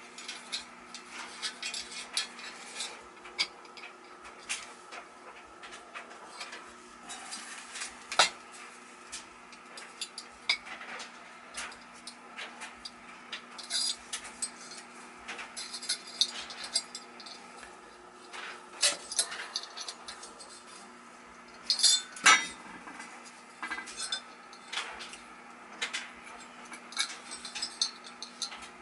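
Metal parts of a gas furnace's replacement exhaust fan motor assembly clinking, clicking and knocking as they are handled and fitted by hand, in irregular short sounds. The sharpest knocks come about eight seconds in and about twenty-two seconds in, over a faint steady hum.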